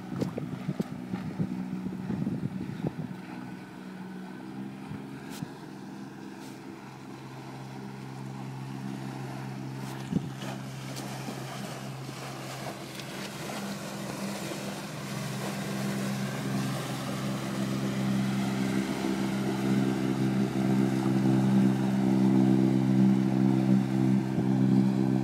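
A small fishing boat's engine running steadily, its hum growing louder over the last third as the boat comes close, over a wash of water and wind noise. A few brief knocks in the first half.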